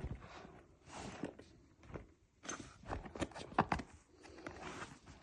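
Heavy-duty fabric tool bag being handled: soft rustling of the material with a series of light knocks and clicks, several in quick succession in the middle.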